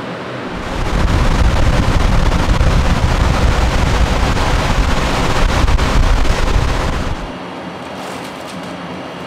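Steady hum of conveyor-line machinery, overtaken about half a second in by a loud rush of blown air with a deep rumble of wind on the microphone. The rush cuts off about seven seconds in, leaving the machine hum.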